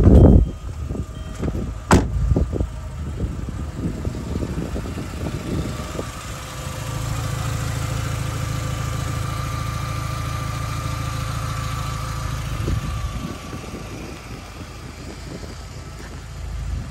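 VW 2.0-litre AEG eight-valve four-cylinder engine of a 1998 New Beetle idling steadily, heard up close over the open engine bay from about seven seconds in. A loud thump right at the start and a sharp knock about two seconds in.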